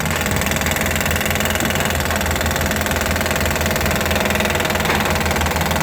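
Engine of heavy track-work machinery running steadily at idle, with a low drone and a rapid knocking pulse.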